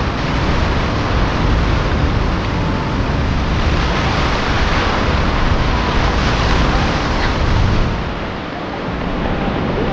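Sea waves washing onto the beach, swelling about four seconds in and easing off about eight seconds in, with wind rumbling on the microphone.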